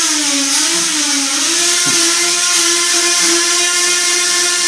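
Electric power tool running at high speed on the hardwood flooring, a steady high whine whose pitch sags for a moment about half a second in before recovering. It is loud enough to drown out speech in the house.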